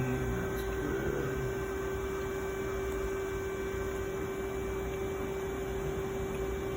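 Steady machine hum from an idling CNC milling machine: a constant mid-pitched tone over a low rumble, unchanging throughout.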